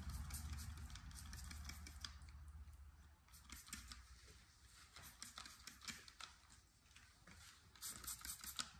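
Trigger spray bottle squirting soapy leak-detection solution in faint, quick spritzes, in several bunches, onto a pressurised engine's intake boots and pulse lines to find air leaks.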